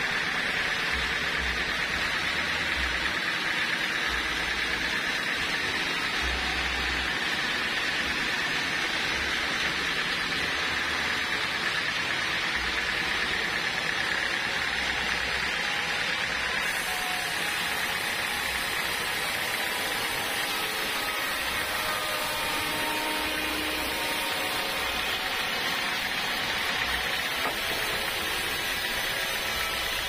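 Band sawmill running steadily and sawing a slab off a hard, dry log: a constant high hiss-whine of blade and motor.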